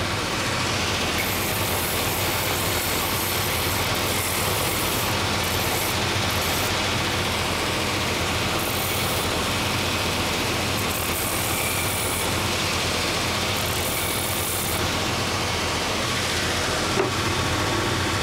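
Electric belt sanding machine for shoe lasts running steadily, its coarse 24-grit belt grinding a wooden last. The grinding hiss comes and goes every second or two as the wood is pressed to the belt and lifted, over the machine's steady motor hum. This is the heel seat and tread of the last being shaped.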